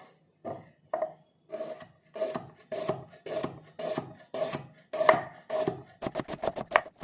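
Vegetables being cut with a kitchen knife: about two drawn, scraping strokes a second, then a quick run of rapid chops near the end.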